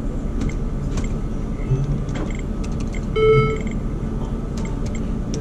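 Video poker machine giving a short electronic chime about three seconds in as a new hand is dealt, over a steady hum of casino floor noise with a few light clicks.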